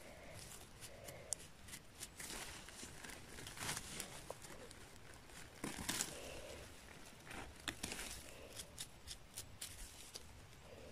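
A small knife cutting and trimming the stems of freshly picked chanterelle mushrooms: faint, scattered clicks and scrapes.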